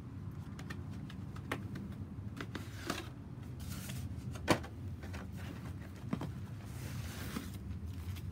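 Leather cowboy boots being handled: scattered light taps and clicks, one sharper knock about four and a half seconds in, and two short rustles, over a steady low rumble.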